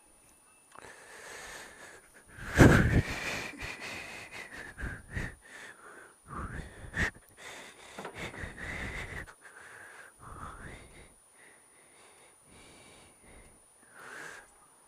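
A person breathing close to the microphone in a series of uneven, noisy breaths with a faint whistle running through them, the loudest about two and a half seconds in.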